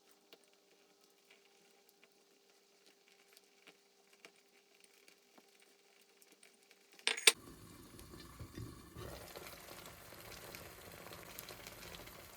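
Light clinks of dishes and cutlery over a faint steady hum, with one sharp clink about seven seconds in, followed by a steady hiss.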